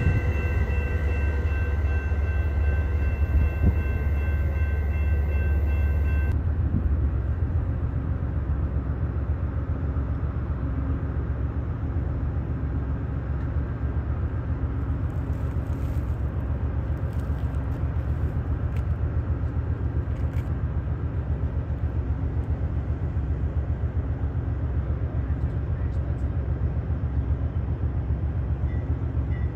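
A red-and-silver commuter train rolling past with a low rumble and several steady whining tones. About six seconds in it gives way to an Amtrak GE Dash 8-32BWH diesel locomotive idling with a steady low rumble.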